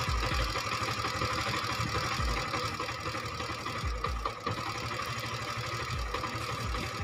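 Honda CD 70's small single-cylinder four-stroke engine idling steadily while the idle-speed screw on its carburettor is being turned down after the mixture adjustment; the idle is still running a little fast.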